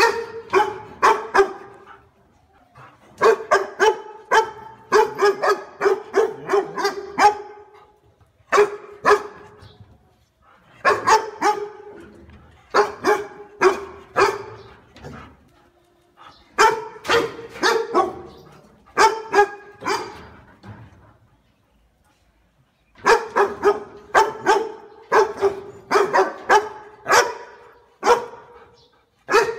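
A dog barking in runs of quick barks, several a second, broken by short pauses. There is a longer pause about three-quarters of the way through before the barking starts again.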